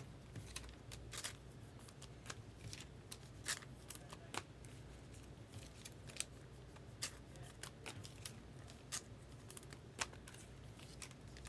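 Baseball trading cards being handled and sorted: faint, irregular ticks and light slides of card stock.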